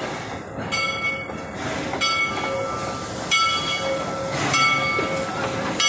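Narrow-gauge locomotive's brass bell ringing in a steady rhythm, about one strike every second and a quarter, over the rumble of the passing train on the track.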